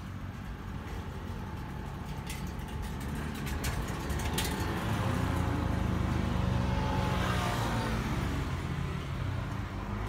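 A vehicle passes by, building to its loudest about six to seven seconds in, its pitch falling sharply as it goes past. A few sharp clicks come between two and four and a half seconds in.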